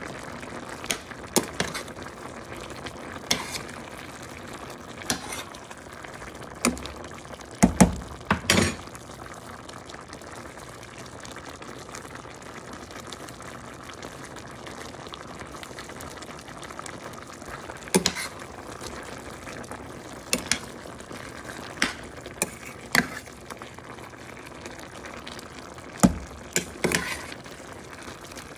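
Zucchini and octopus stir-fry simmering in sauce in a stainless steel pan: a steady bubbling sizzle. Sharp clicks and knocks come every few seconds, loudest about eight seconds in and near the end.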